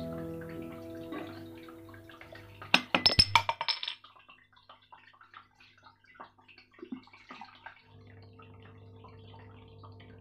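Strummed acoustic guitar music fading out, a quick cluster of sharp clicks and clatters about three seconds in, then faint, irregular crackling from sisig on a hot cast-iron sizzling plate.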